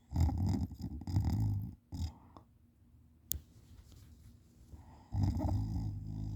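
A person snoring while sleeping on their back: a long snore, a short one just after it, then another long snore near the end. A single sharp click comes about three seconds in.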